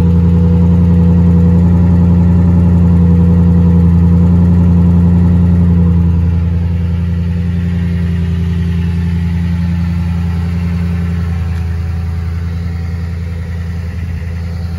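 Toyota Tundra pickup's exhaust at a steady idle, still warming up after a cold start, heard close to the tailpipe as an even, low hum. It drops a little in level about six seconds in and stays steady after that.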